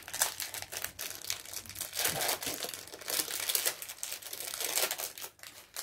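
Clear plastic packaging bag crinkling irregularly as a watch is unwrapped from it by hand.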